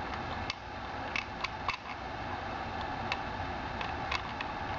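Sectioned aircraft magneto turned slowly by hand, its gears and contact mechanism making light, irregularly spaced clicks over a steady background hiss.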